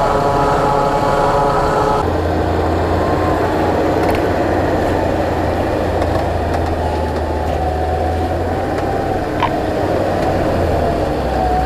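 An off-road 4x4's engine running hard. For the first two seconds there is a steady whine, then it settles into a deep, heavy drone.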